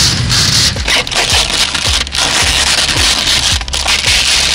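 Background music with a steady beat over the crinkling and crackling of dark window-tint film being peeled off a car's rear window and crumpled by hand.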